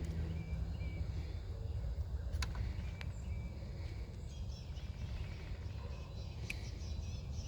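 Outdoor ambience: a steady low rumble with faint bird chirps and a few sharp clicks, about two and a half, three and six and a half seconds in.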